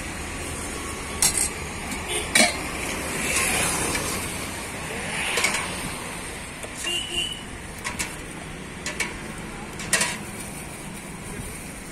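Steel spoon and ladle clinking against steel serving pots as egg curry and gravy are scooped into a plastic bag, several sharp clinks spread out, over steady background traffic.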